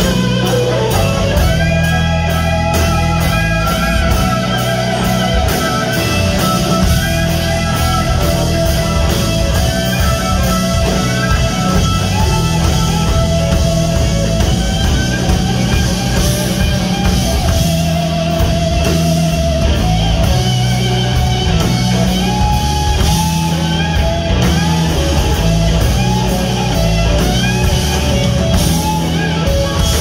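A live blues-rock band playing an instrumental passage: an electric guitar plays a lead line with bent, wavering notes over electric bass and a drum kit.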